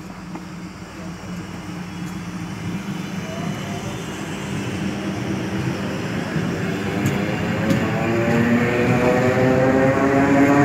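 Passenger train pulling away from the platform and gathering speed, with a low rumble from the cars. Over the last few seconds a rising whine from its drive comes in and grows louder.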